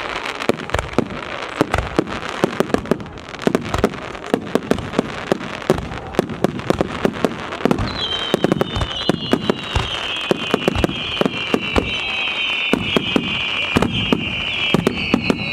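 Fireworks going off in a rapid, irregular string of sharp bangs and crackling pops. About halfway through, a high, shrill whistle joins and slowly drops in pitch as the bangs carry on.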